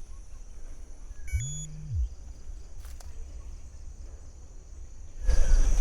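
Steady high buzzing of rainforest insects over a low rumble on the microphone. A short low hum comes about a second and a half in, and the rumble grows louder near the end.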